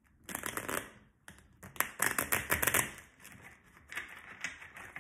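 Deck of cards being shuffled by hand, the card edges fluttering in several quick runs; the loudest run comes about two seconds in.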